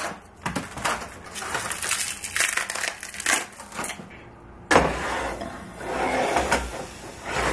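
Plastic wrap crinkling and crackling as it is peeled off a block of frozen chicken in a foam tray. A little under five seconds in, a sudden louder burst of handling noise begins.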